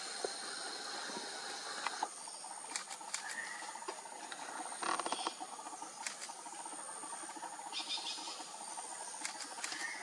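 Dry leaf litter and soil rustling and ticking as a male red spurfowl scratches and pecks on the forest floor, with a louder scuffle about halfway through. A thin high steady tone comes and goes in the background.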